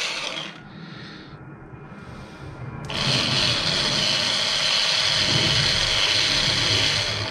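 Small 12 V DC worm-drive motor of a SPID RAU azimuth rotator running on battery power, a steady whirr. It stops about half a second in and starts again about three seconds in. The motor, which had seized solid from corrosion, now turns freely after being freed and greased.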